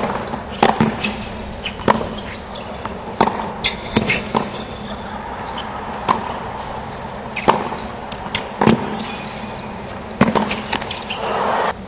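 Tennis ball struck back and forth with racquets in a baseline rally on a hard court: a sharp pock about every second and a half, over a steady crowd murmur that swells near the end.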